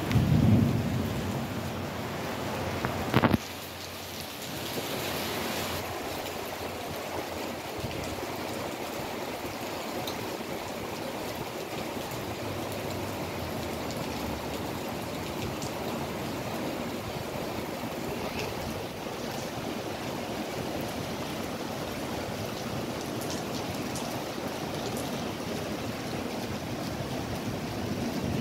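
Heavy rain falling in a steady hiss, with a single sharp knock about three seconds in.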